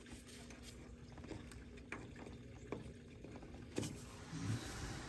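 Faint scattered clicks and a light scrape of a chisel on metal, set against the bent-over locking tab on a steering gear box bolt.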